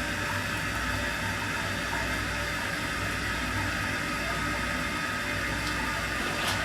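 New toilet's tank filling through its fill valve after the water supply is turned on: a steady hiss of water running into the tank.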